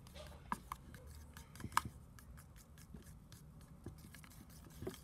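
A utensil stirring thick glue slime mixture with water just added, in a plastic tub: faint, irregular scrapes and small clicks against the plastic, with a sharper click a little under two seconds in.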